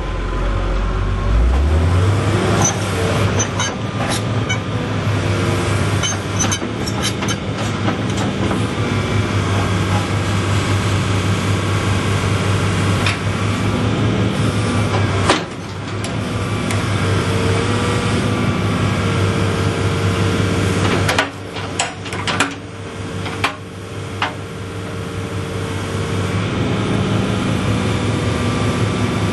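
John Deere 225C LC excavator's diesel engine running, speeding up in the first couple of seconds, then holding steady under hydraulic load. Occasional metal clanks and a steady hydraulic whine come and go as the machine is worked.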